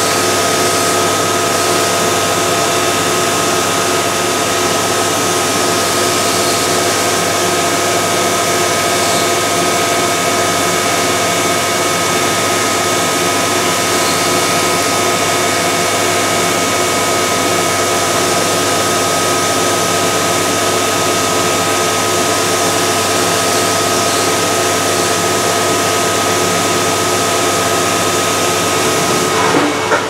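CNC milling machine cutting an aluminium part under flood coolant: a steady spindle whine with the hiss of coolant spraying against the enclosure.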